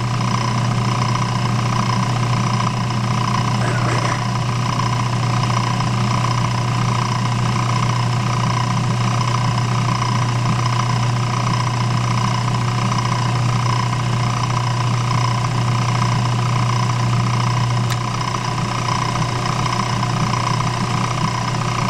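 Craftsman 109 bench lathe running steadily, its motor giving an even hum; pretty quiet for a running lathe.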